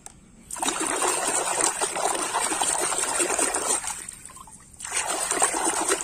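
Water splashing and trickling as a plastic toy figure is washed by hand in a tub of water. There are two spells of splashing, with a short pause about four seconds in.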